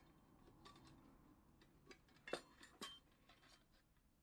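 Light metal clinks and clicks as the wire-clipped pot support of a Coleman 508A gasoline stove is worked off the burner by gloved hands, with two sharper clinks a little past two seconds and near three seconds.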